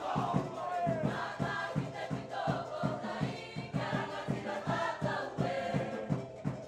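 Cook Islands drum-dance music: a group of voices singing over a fast, even drum beat of about six strokes a second.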